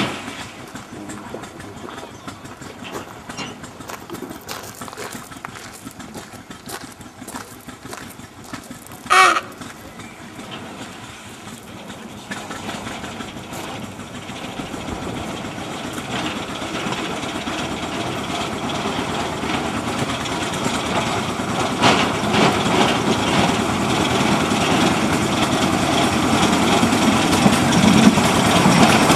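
Engine of a small narrow-gauge internal-combustion locomotive running as it approaches slowly, growing steadily louder over the second half. A short high toot sounds about nine seconds in.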